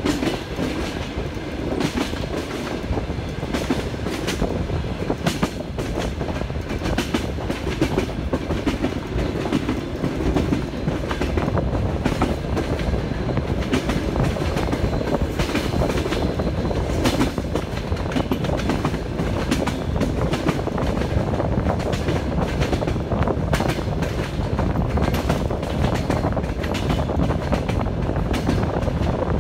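Passenger train wheels clattering over the rail joints, a steady rumble with a continual run of sharp clicks and knocks.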